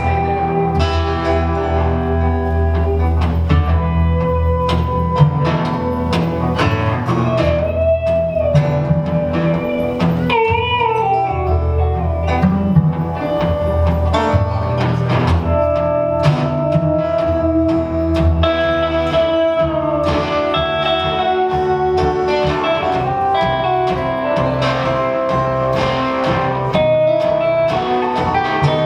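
Live band music: a guitar-led blues number played by guitar, bass and drums.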